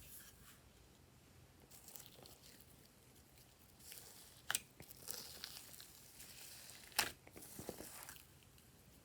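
Glossy slime being squished and stretched by hand, with faint sticky crackling and two sharp snaps, one about halfway through and one near the end.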